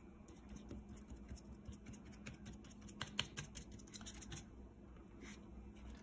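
Foam sponge brush dabbing watercolour onto paper: faint, irregular soft taps, a little more frequent around the middle.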